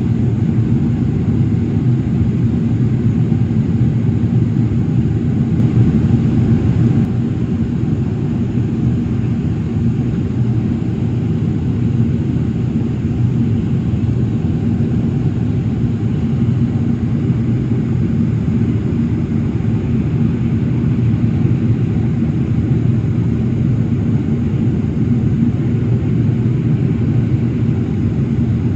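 Airliner cabin noise in flight: the steady rumble of the jet engines and the airflow over the fuselage, heard from a window seat.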